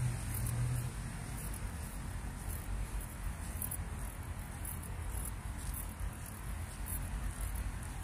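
Insects chirring high and thin in short, irregular pulses, over a steady low rumble; a low hum stops about a second in.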